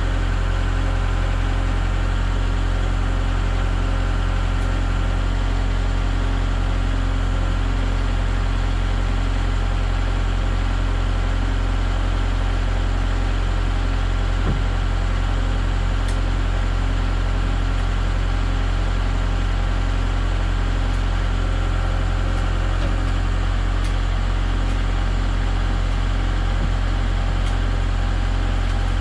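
An engine idling steadily at an even speed, with one light knock about halfway through.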